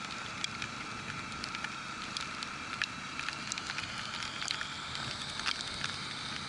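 Motorcycle riding on a wet road in the rain, heard from a bike-mounted camera: a steady hiss with a faint steady whine, dotted with many irregular sharp ticks of raindrops striking the camera.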